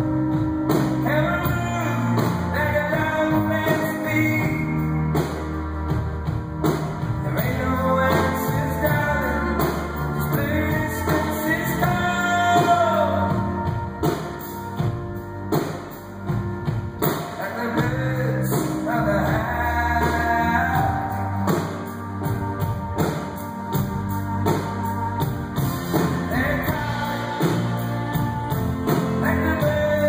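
A live band playing a song with a lead vocal over piano, cello, bass guitar and drums, heard from the audience through the hall's sound system.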